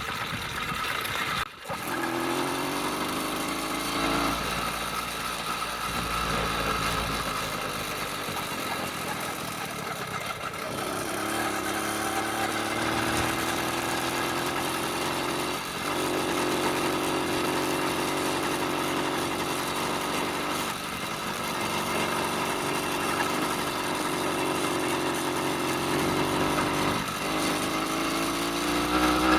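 80cc two-stroke motorized-bicycle engine running continuously under throttle. Its pitch climbs as it speeds up, drops back, and climbs again several times, most clearly about 2, 11 and 27 seconds in.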